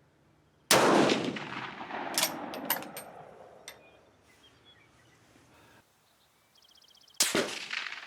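Two rifle shots about six and a half seconds apart from a Swiss K31 straight-pull rifle firing GP11 7.5×55mm ammunition, each with a long echoing tail. In between come a few sharp metallic clicks as the bolt is worked to chamber the next round.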